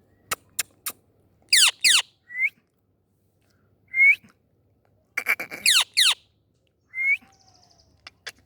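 Indian ringneck parakeet calling: two pairs of loud, downward-sweeping calls, and three short rising whistles. Sharp clicks come in quick runs at the start, in the middle and near the end.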